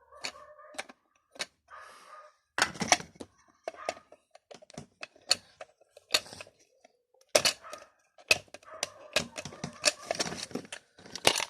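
A small screwdriver prying the plastic housing of a small Bluetooth subwoofer apart: a run of sharp plastic clicks, cracks and knocks, irregular at first and coming thick and fast in the last few seconds.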